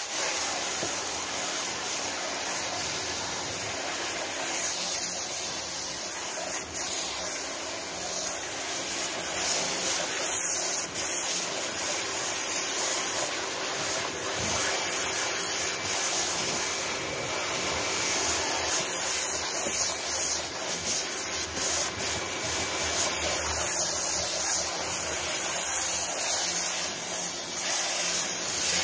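High-pressure water jet from a motorcycle-wash pressure washer hissing steadily as it blasts grime off a styrofoam hydroponic board. It switches on abruptly at the start.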